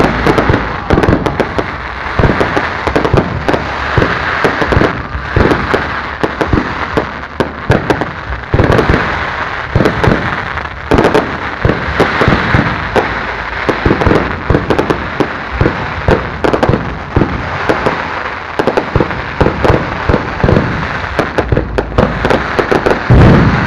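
Aerial fireworks display: a dense, unbroken run of bangs and crackling from shells bursting one after another.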